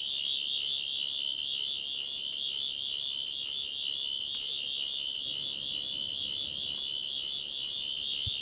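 A sonic screwdriver's high-pitched, warbling electronic whine, steady throughout.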